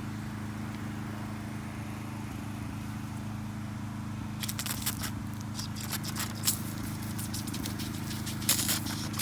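Gas pressure washer's engine running steadily as a low hum. About four and a half seconds in, a dense crackling starts and continues to the end.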